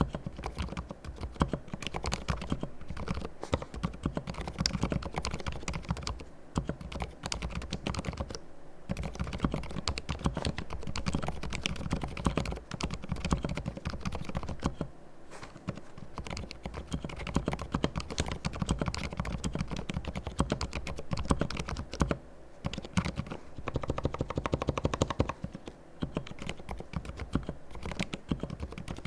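Typing on a Ducky and Thinkway mechanical keyboard with fully lubricated silent red linear switches: fast runs of soft, muted key presses, broken by short pauses.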